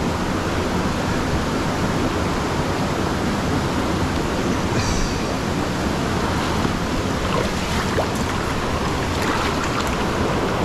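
Steady rush of a rocky river's water flowing around and over boulders, heard from just above the water's surface.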